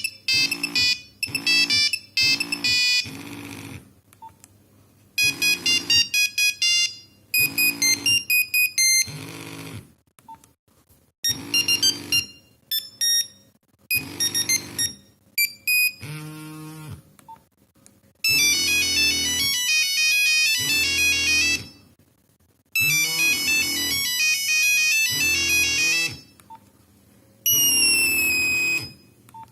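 Nokia 3410 mobile phone playing its monophonic beeping ringtones one after another. Each is a short burst of melody lasting one to a few seconds, with brief pauses between them.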